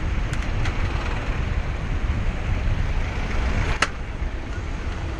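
Road traffic noise heard from a bicycle riding between cars, with wind rumbling on the action-camera microphone. A couple of light clicks early on and one sharp click a little before the end.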